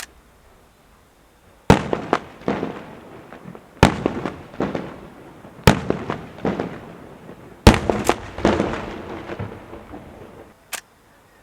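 Maltese festa fireworks going off: a run of loud bangs about two seconds apart, each followed by a trail of smaller cracks and echoes, with a single sharp crack near the end.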